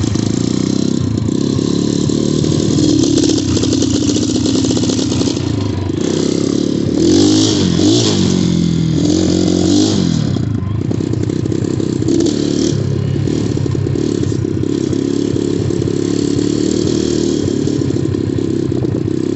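Xmoto 250cc dirt bike engine running as the bike is ridden, revved up and down a couple of times between about seven and ten seconds in. The revving is meant to blow water out of the muffler and engine.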